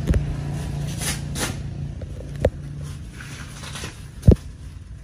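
A few sharp knocks and clunks from a glazed ceramic bonsai pot being turned by hand on its round stand, the loudest about four seconds in, over a steady low hum that fades out partway through.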